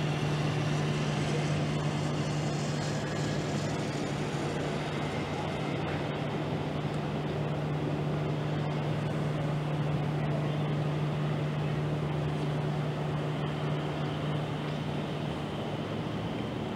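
Steady low mechanical hum over a constant rush of background noise.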